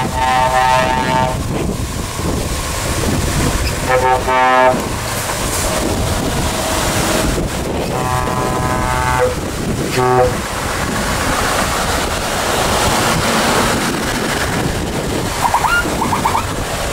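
A convoy of Scania and Mercedes-Benz trucks passing, engines running under wind on the microphone, with truck horns blowing four times: a blast at the start, another about four seconds in, a longer one about eight seconds in and a short one about ten seconds in.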